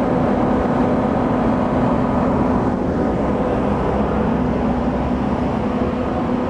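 Engine idling with a steady, unchanging hum and low rumble.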